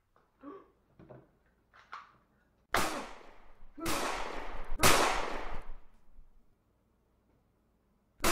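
Three pistol gunshots about a second apart, each with a long ringing tail, and a fourth shot right at the end.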